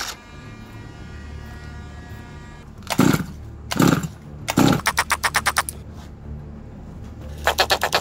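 Two-stroke petrol engine of a 1/5-scale Losi 5ive-T 2.0 RC truck being pull-started: three sharp pulls about a second apart, then quick runs of rapid chuffs, about ten a second, as it turns over and sputters without catching, once in the middle and again near the end.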